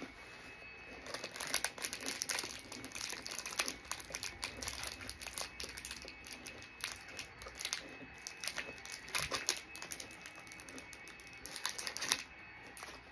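Clear plastic snack wrapper crinkling and crackling as it is handled, in an uneven run of sharp crackles, loudest about a second and a half in and again near the end.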